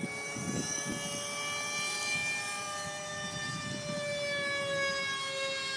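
A Double Horse 9116 RC helicopter's electric motor and rotors whining as it lifts off and climbs. It is a steady whine of several tones that slowly sags in pitch.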